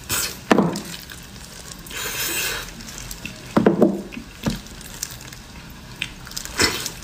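Close-miked eating of braised pig trotters: sticky, wet mouth sounds of chewing and sucking on the gelatinous skin, with a few sharp smacks standing out and a brief rustle about two seconds in.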